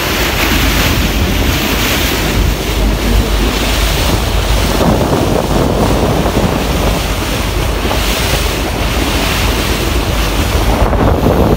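Wind buffeting the microphone over the rush and splash of sea water around a boat under way.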